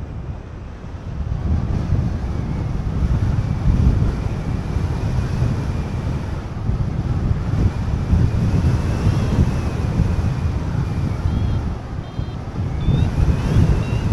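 Wind buffeting the camera microphone during paraglider flight: a loud, gusty low rumble that swells and dips.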